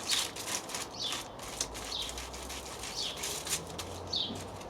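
A bird chirping a short falling note about once a second, over a fine, steady crackling.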